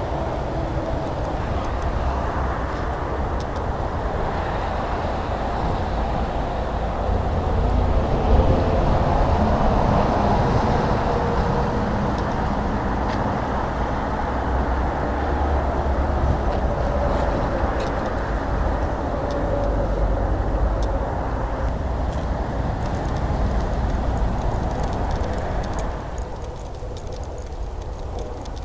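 Steady rush of motorway traffic passing below, swelling as heavier vehicles go by, with a deep rumble underneath. It drops noticeably a few seconds before the end.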